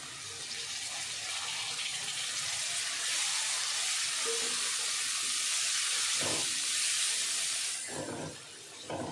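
Chopped tomatoes sizzling in hot oil in a kadhai as they are tipped in and stirred with a spatula. The sizzle grows louder over the first three seconds, holds, and dies down about eight seconds in, with a few short scrapes of the spatula on the pan near the end.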